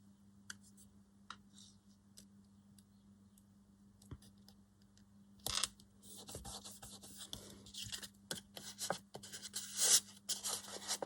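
Paper being handled: irregular rustling and scraping, with a few light clicks early on. The handling turns busy about halfway through.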